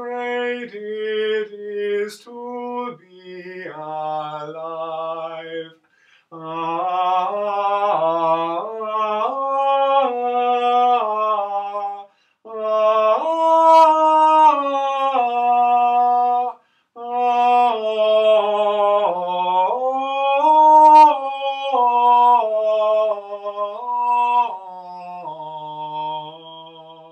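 A man's solo voice singing unaccompanied, an improvised line of held notes stepping up and down in pitch, with short breaks for breath about 6, 12 and 17 seconds in. The voice fades out near the end.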